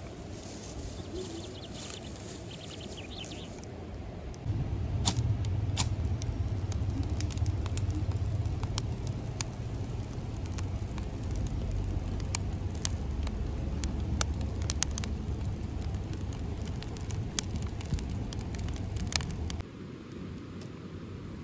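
Dry straw and kindling burning freshly lit, a low rushing rumble with many sharp crackles and snaps, starting about four seconds in and stopping abruptly near the end.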